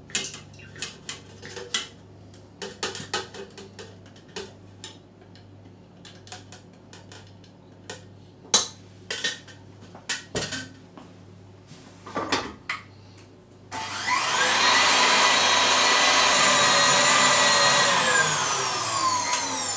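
Scattered light knocks and clinks of kitchenware. About three-quarters through, a tilt-head stand mixer starts whipping chilled evaporated milk: its motor whine rises to a steady high speed and then falls in pitch near the end as it slows.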